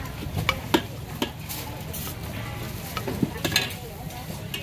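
A metal ladle clinking and scraping against a stainless steel pot as thick sauce is scooped out: a handful of sharp clicks, some ringing briefly, over steady background noise.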